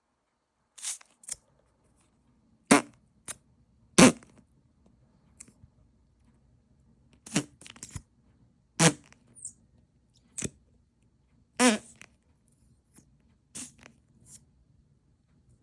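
Le Tooter fart sound machine playing a string of short fart sounds, about a dozen, each under half a second, some with a wavering pitch, separated by irregular pauses of about half a second to two seconds.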